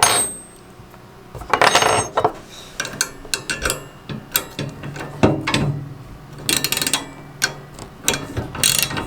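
Hand ratchet clicking in short bursts as bolts are turned during assembly of a snow plow's metal frame and springs.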